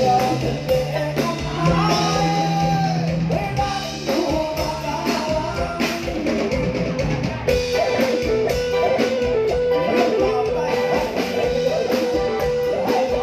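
Live Thai luk thung band music: singing over electric guitar and drum kit, with a long held note through the second half.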